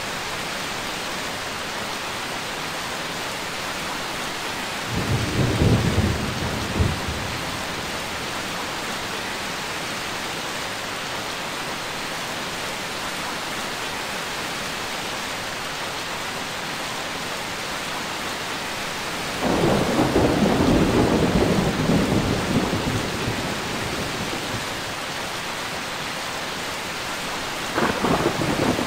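Steady rain with rolling thunder: a short rumble about five seconds in, a longer one lasting several seconds from about twenty seconds in, and another starting just before the end.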